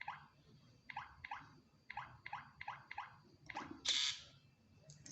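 Smart door lock keypad beeping as a code is entered: about eight short blips, each falling in pitch, then a louder, noisier sound lasting a moment about four seconds in.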